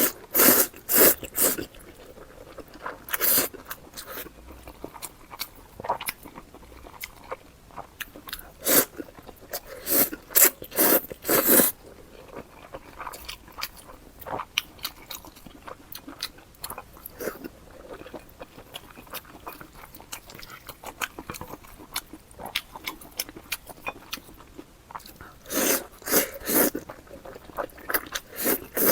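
Close-miked eating of wide Buldak fire noodles: wet chewing and biting mouth sounds in irregular bunches, loudest near the start, around the middle and near the end.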